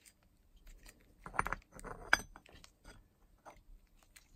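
Light clinks, knocks and handling noises as the cast aluminium cover of an ATV water pump is picked up and fitted onto the pump body, with a sharp click about two seconds in.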